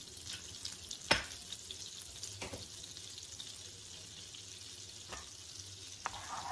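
Butter melting in hot ghee in a nonstick frying pan, sizzling with a steady fine crackle. A sharp knock comes about a second in, with a few lighter ticks later, and a spatula goes into the pan near the end.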